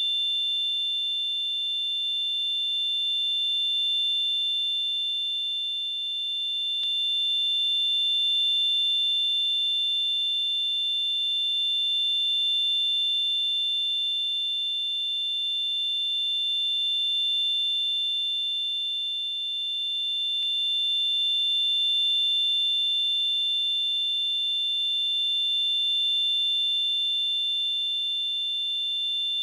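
Simulated tinnitus: a steady, high-pitched electronic ringing made of two close tones, with a faint hiss above them. Its loudness swells and eases gently every few seconds, but the ringing never breaks.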